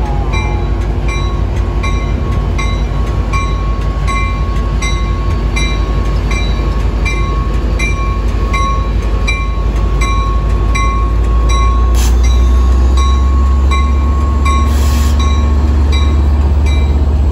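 Amtrak California F59PHI diesel locomotive running with a deep rumble that grows louder about eleven seconds in as the train pulls out, while a bell rings steadily about one and a half times a second. A sharp click comes near the middle and a short hiss a few seconds later.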